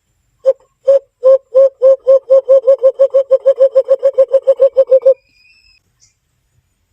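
Cupped-hand call blown by a person: a series of hollow hoots at one low pitch, slow at first and speeding up to about five a second, then stopping about five seconds in. It imitates the call of the kulo-kulo (alimokon) to lure the bird closer.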